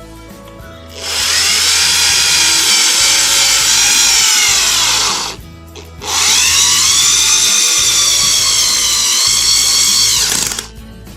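Foster FSD-010 corded power screwdriver's motor running in two bursts of about four seconds each, a high whine that climbs as it spins up and sags just before each stop. Background music plays underneath.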